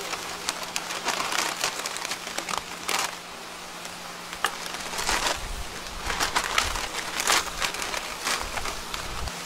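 Foil bag crinkling and rustling in gloved hands as a whole roast chicken is pushed off a rotisserie spit into it, in irregular crackly bursts over a steady low hum.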